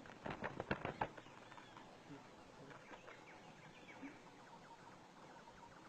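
A quick run of about ten sharp knocks or clicks in the first second, then faint bird chirps repeating in the background.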